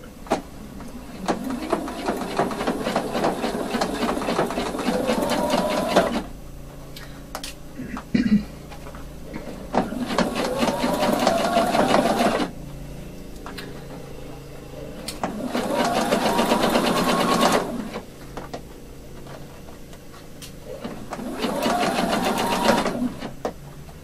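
Electronic household sewing machine stitching in four short runs with pauses between. Each run starts with the motor's pitch rising as it speeds up, over a rapid, even patter of needle strokes.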